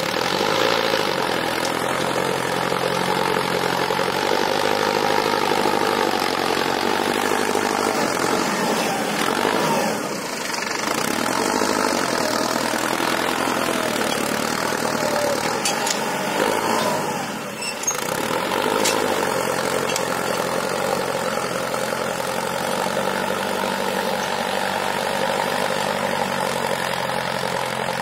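Mahindra Arjun Novo 605 tractor's diesel engine running under load as it pulls a spring-tine cultivator through the soil. Its note dips briefly about ten seconds in and again just before eighteen seconds.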